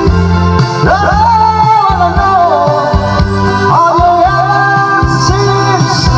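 A band playing with a steady beat and bass, and a voice singing two long, drawn-out phrases over it.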